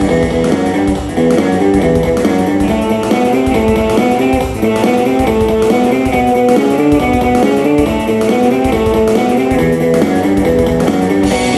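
Guitar-led instrumental break of a live band's rock song: a repeating melody of picked guitar notes over strummed chords and bass, with a steady beat.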